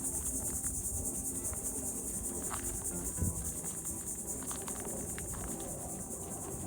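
Crickets trilling in a steady, high-pitched chorus, with a single low thump about three seconds in.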